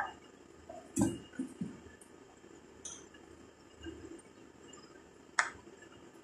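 A few faint, scattered clicks and taps of a spoon against the cake tray as its handle is dragged through the icing. The sharpest come about a second in and near the end.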